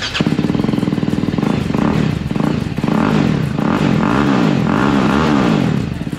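TVS Apache RR310's single-cylinder engine running through an aftermarket Akrapovic-style slip-on exhaust with a dB killer fitted, idling at first, then blipped up and back down several times in quick succession, settling again near the end.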